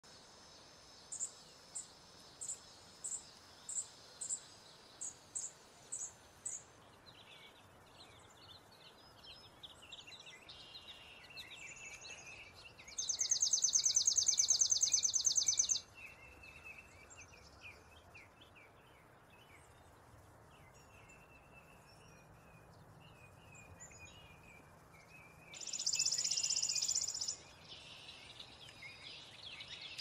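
Chipping sparrow calling and singing: about ten sharp, high chips spaced apart, then two fast, dry trills on one pitch, the first about three seconds long and the second about two. Softer, lower birdsong from other birds runs underneath after the chips.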